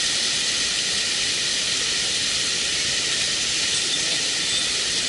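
Mountain stream water running, a steady hiss with no let-up.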